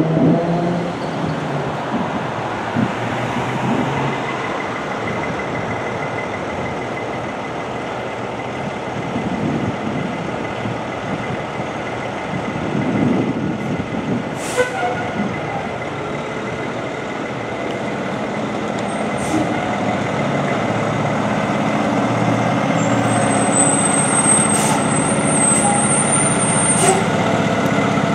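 Fire engine's diesel engine running in the station bay, growing louder over roughly the last ten seconds as the truck pulls out.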